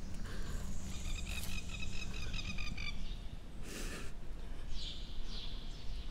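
Forest ambience of birdsong over a low steady rumble: a rapid high chirping trill about a second in, a short rustling noise near four seconds, then a few short falling calls.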